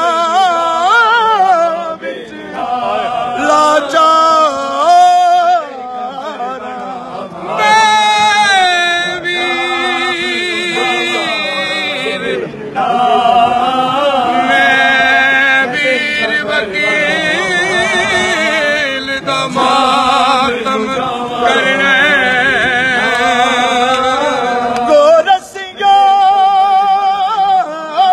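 A man's voice singing a Punjabi noha, a Shia lament, unaccompanied, with a wavering, gliding pitch and short breaks for breath.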